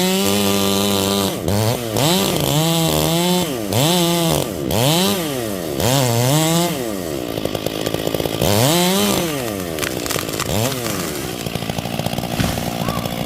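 Stihl chainsaw revving up and falling back over and over, its engine pitch rising and dropping about once a second. Near the end it settles to a lower, steadier idle.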